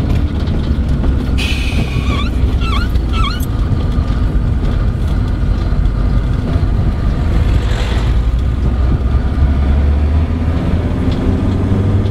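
Van engine and tyre noise while driving, a steady low rumble. A few short chirps sound about two to three seconds in.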